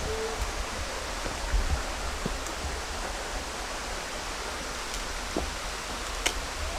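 Steady rushing of a rocky jungle stream, with a low wind rumble on the microphone and a sharp tick about six seconds in.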